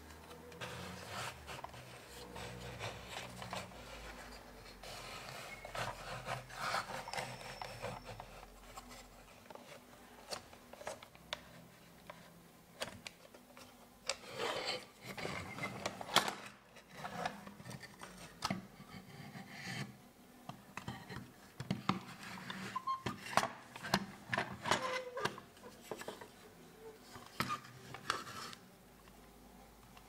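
Handling noise of a vintage wooden box coffee grinder being taken apart: wood rubbing and knocking, and metal parts of the grinding mechanism scraping and clicking. It goes on in irregular bursts, with sharper knocks about halfway through and again later.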